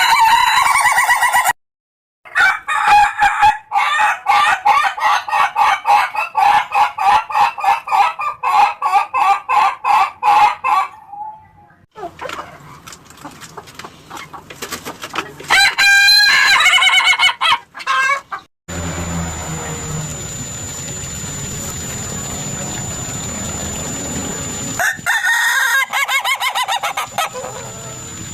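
Ayam ketawa (laughing chicken) roosters crowing: several separate crows, the longest a fast run of short repeated notes like laughter going on for about nine seconds, with abrupt cuts between them. Between the last two crows there is a stretch of steady hiss with a thin high whine.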